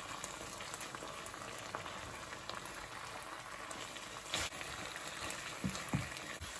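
Tamarind sauce with sliced steak simmering in a pot, a steady bubbling crackle with fine pops. A sharp knock about four and a half seconds in and two softer knocks near six seconds.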